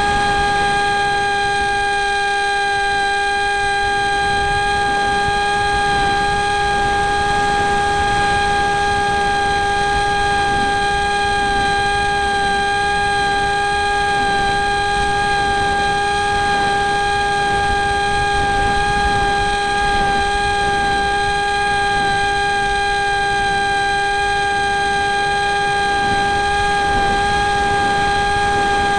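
Electric motor and propeller of an RC flying wing running with a steady whine at one unchanging pitch, heard from a camera mounted on the plane, with wind rushing over the microphone.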